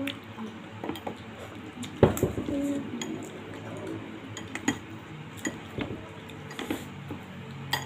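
Metal spoon and fork clinking and scraping against a bowl of noodle soup, in scattered clicks, with a louder knock about two seconds in.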